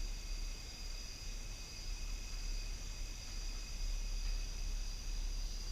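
Crickets chirring steadily in a high-pitched chorus over a low, steady hum.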